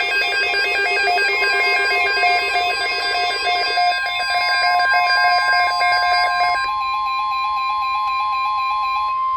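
NOAA Weather Radio 1050 Hz alert tone, one steady high electronic tone. For about the first seven seconds a second electronic alert of rapidly alternating beeping tones at several pitches plays over it, then stops, leaving the single tone alone.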